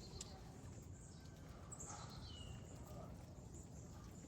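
Faint outdoor ambience with a low steady rumble, and a bird's short falling whistle about two seconds in.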